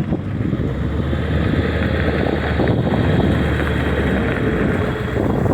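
Ford Econoline van driving along a rough dirt road, heard from inside the cab: its engine running and a steady low road rumble.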